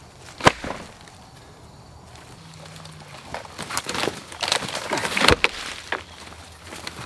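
Dry wood snapping and cracking: one sharp crack about half a second in, then a flurry of cracks and knocks, loudest near the end of it, as branches and brush break.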